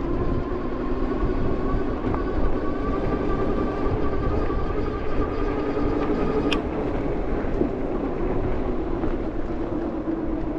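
Wind buffeting the microphone as a low rumble, over a steady mechanical drone. A single sharp click about six and a half seconds in.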